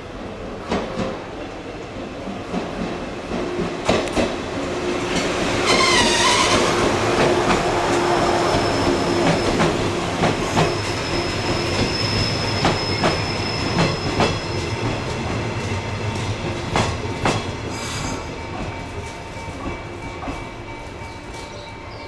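A Shinano Railway 115-series electric multiple unit running into the station and slowing to a stop, its wheels clicking over rail joints. A wavering high squeal comes about six seconds in, and the running noise fades in the last several seconds as the train comes to rest.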